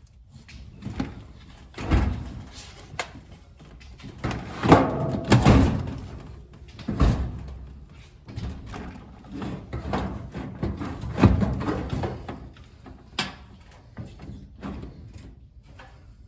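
A clothes dryer being shoved and shifted back toward the wall: irregular scrapes and knocks of the metal cabinet, loudest about five seconds in.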